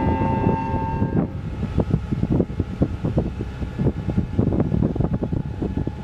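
Background music stops about a second in, leaving wind buffeting the microphone aboard a boat under way: an irregular low rumble with many short knocks.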